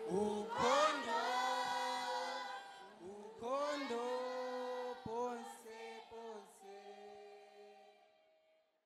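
Voices singing together, growing quieter and fading out to nothing about eight seconds in.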